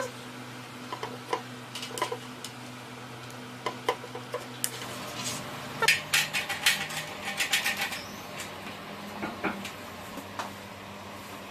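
Metal clicks and clinks from handling a cast-metal rotary-tool holder stand clamped to a table edge, scattered at first, then a quick run of rattling clinks about six to eight seconds in.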